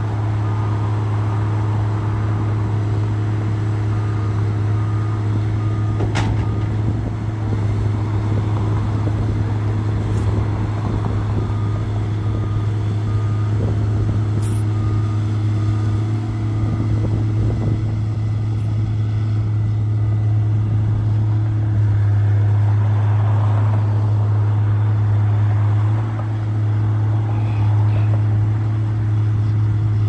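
Crawler pile-driving rig running with a steady low mechanical drone and no hammer blows, its pitch holding level throughout. Short runs of a faint beeping can be heard in the first half.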